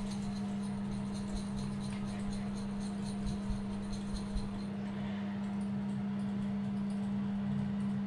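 A yerba mate cup shaken and tapped by hand, with a few soft taps and rattles of the dry leaves inside, over a steady low hum.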